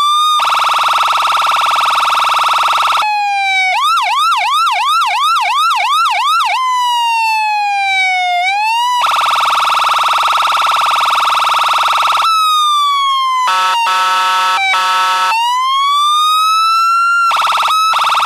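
Ambulance electronic siren cycling through its tones. It runs slow rising and falling wails, a fast yelp of about three sweeps a second, and long stretches of rapid high warble. About two-thirds of the way through come a few short, lower buzzing blasts.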